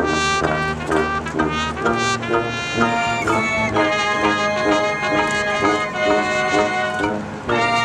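High school marching band playing a brass-led arrangement of a 1967 pop tune, with held low notes under the melody. The sound drops back briefly near the end, then the full band comes back in.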